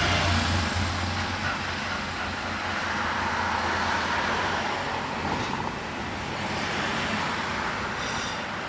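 Road traffic: vehicles passing, a low engine hum early on and noise that swells and fades as they go by.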